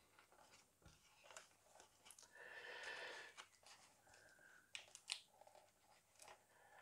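Faint handling of parts of a 1:8 scale model car kit: scattered light clicks, a short rustle about two and a half seconds in, and a sharper click about five seconds in.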